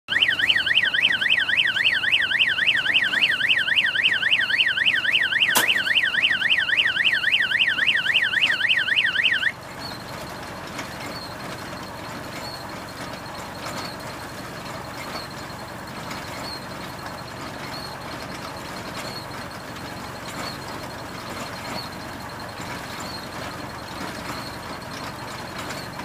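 Loud electronic alarm warbling quickly up and down, with one sharp click partway through; it cuts off suddenly about nine and a half seconds in. After it, the tractor-hitched mini round baler keeps up a steady, quieter mechanical running noise.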